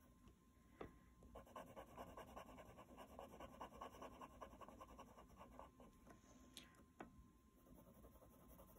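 Faint, rapid scratching of a colored pencil pressed hard on a coloring card, in quick even strokes worked in circles to blend the orange shades. A light tap comes about a second in and another near the end.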